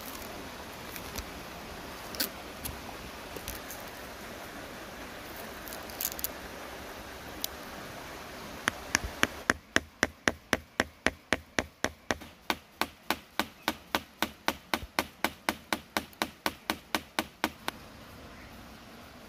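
A small hammer tapping a metal tube punch into a young tree trunk, quick even taps at about four or five a second for some eight seconds, cutting a round plug of bark for a graft. Before the taps start there is a steady rustling hiss of plastic grafting film being stretched around a graft.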